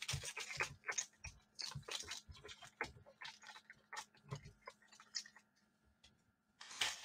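Foil trading-card pack wrapper crinkling as the cards are handled: a run of irregular small crackles and clicks that thins out about five seconds in, then a brief louder rustle near the end.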